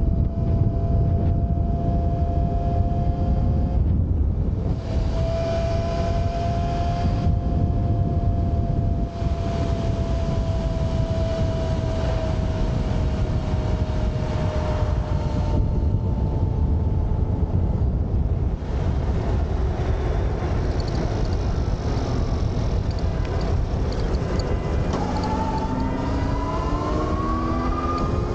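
Velimotor VGX6 electric motorcycle riding along, its motor whine running under heavy wind rush on the microphone. The whine sinks slowly in pitch through the middle, then rises near the end as the bike speeds up.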